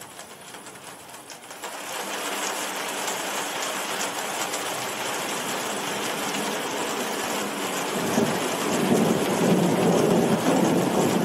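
Heavy rain pouring steadily, swelling about two seconds in. Thunder rumbles under it, growing louder from near the end.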